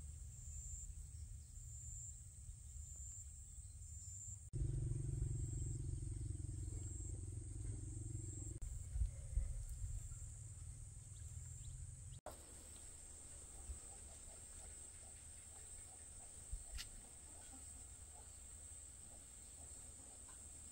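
Outdoor ambience: wind rumbling on the microphone over a steady, high-pitched drone of insects. The rumble is loudest from about four seconds in and drops abruptly about twelve seconds in, leaving mostly the insect drone.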